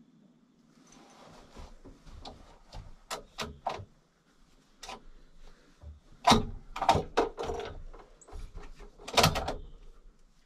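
Knocks, bumps and scrapes of people moving about and handling gear inside a small wooden box blind, the loudest clunks about six and nine seconds in.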